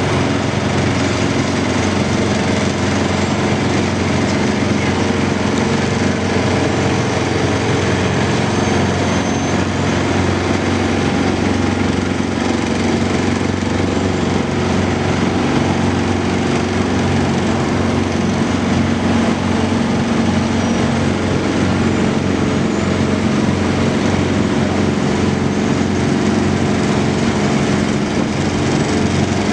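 An engine or motor running steadily at one constant speed, an even drone with no breaks.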